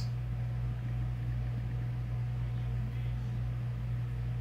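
A steady low hum, unchanging in pitch, with a faint hiss above it.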